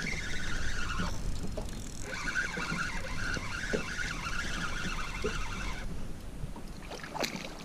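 Light spinning reel being cranked with a fish on the line, its gears whirring in two spells: it pauses about a second in, resumes a second later, and stops about six seconds in. A single sharp click comes near the end.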